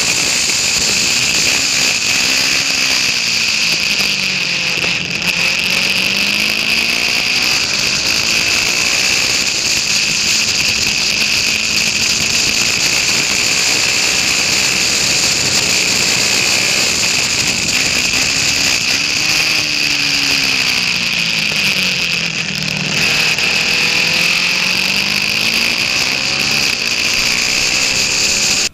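KTM 690 Duke single-cylinder race bike at full speed, heard onboard through the camera with heavy wind rush. The engine note drops twice as the bike slows into corners, then climbs again as it accelerates out.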